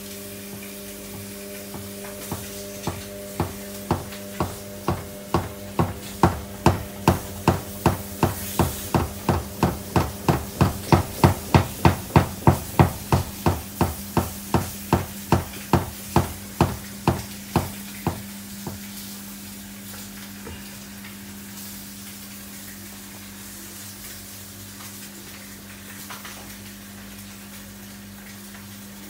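Samsung front-loading washing machine with an overloaded drum turning, over a steady motor hum, with a regular knock on each turn. The knocks quicken to about three a second, then slow and stop after about 18 seconds as the drum winds down, and the hum carries on.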